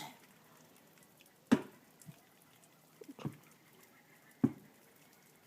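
Four short, sharp taps, irregularly spaced about a second or more apart, each dying away quickly.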